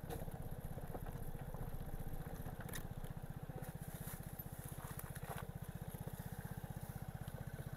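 Vespa Primavera scooter's single-cylinder engine running at low speed with a steady, rapid putter, with a few faint clicks over it.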